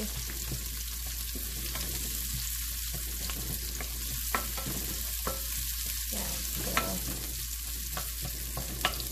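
Ginger, garlic and onion sizzling in hot oil in a nonstick pot while being stirred with a wooden spatula, with a few sharp clicks of the spatula against the pan.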